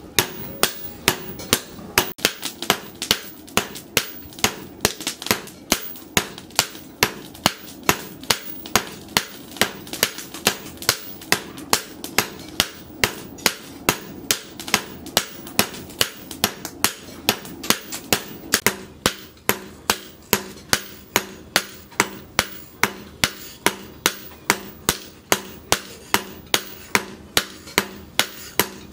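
Hand hammer forging a red-hot leaf-spring steel knife blade on a small round steel anvil: sharp metal-on-metal blows at an even pace of about two a second, with a metallic ring between strikes.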